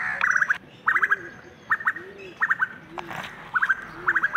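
Birds calling: short runs of three to five quick, high chirps repeating about once a second, alternating with a lower call that rises and falls.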